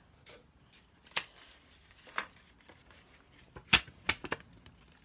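Handling noise close to the microphone: scattered light clicks and rustles, with a sharper knock about three-quarters of the way through, followed by a few quick clicks.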